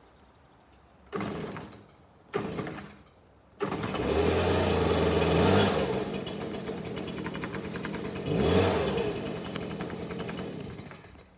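Small gas engine of lawn or snow equipment being cold-started with a pull cord: two short pulls that don't catch, then it fires on the third and runs with a quick, even beat. It surges once about two-thirds of the way through, then winds down near the end.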